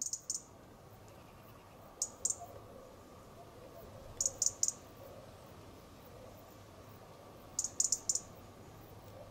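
European robin giving sharp, very high ticking calls in short runs of two to four, a run every couple of seconds.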